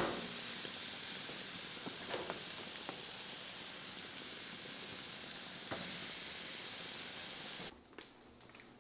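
Sockeye salmon fillets sizzling on a hot gas grill grate: a steady hiss, with a sharp click at the very start and a few light taps as pieces are laid down and turned. The sizzling cuts off abruptly about a second before the end.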